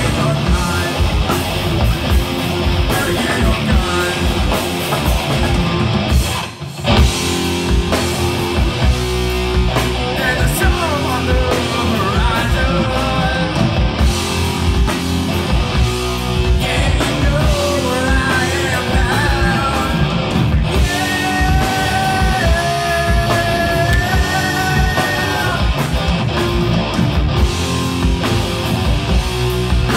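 A live rock band playing loudly, driven by electric bass guitar. It stops briefly about a quarter of the way in, and a high, held melody line comes in over it in the second half.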